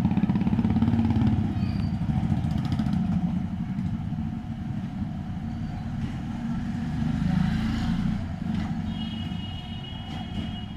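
Motorcycle engine running steadily at idle, a low even rumble with no revving.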